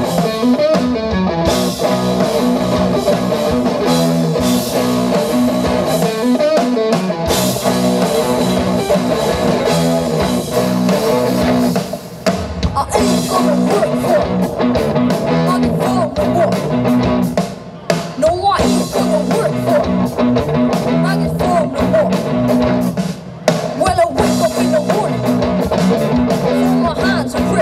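A young rock band playing live through a PA: electric guitar, electric bass and a drum kit, with a boy's lead vocal over the second half.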